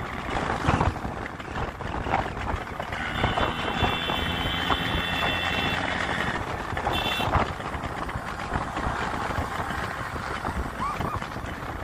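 Motorcycle riding along the road: steady engine and wind noise. A high steady tone sounds for about three seconds a few seconds in, and briefly once more a second later.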